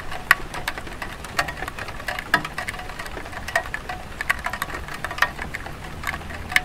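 Light rain falling on a tile roof: irregular drops ticking and splashing several times a second, some louder than others, over a soft steady hiss.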